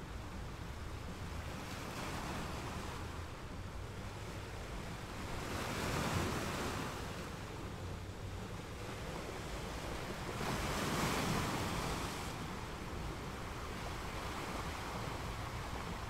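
Ocean waves breaking on a shore over a steady low rush of surf, with two larger waves swelling and falling away about six and eleven seconds in.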